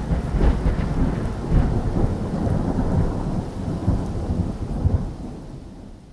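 Thunder rumbling over steady rain, a storm sound effect that starts suddenly and fades out near the end.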